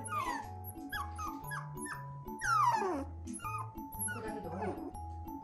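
Toy poodle puppy whining in several short falling whines, the longest and loudest about two and a half seconds in, over background music with a steady, repeating beat.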